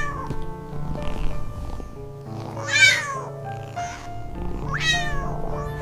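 Cat meowing three times, each meow a falling call, over background music with held notes.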